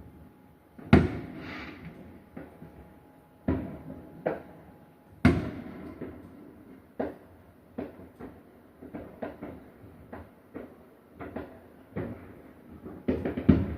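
Fireworks exploding: a series of sharp booms, the loudest about a second in and about five seconds in, then a run of smaller pops and a dense burst of bangs near the end.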